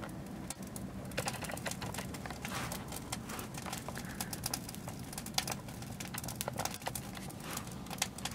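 Barbecue charcoal burning fiercely and sparking, crackling with many quick, irregular snaps and pops over a low, steady rush.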